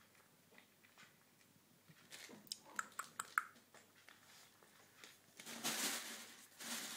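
Devon Rex kittens eating dry food from a stainless steel bowl: faint crunching and a quick run of small clicks and clinks against the metal a couple of seconds in, with two short rustling bursts near the end.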